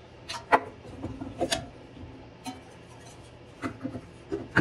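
Plastic heater blower housing and fan parts clicking and knocking together as they are handled and fitted by hand. The sharp clicks are irregular: a couple about half a second in, one at about a second and a half, and a cluster near the end, with quieter handling between.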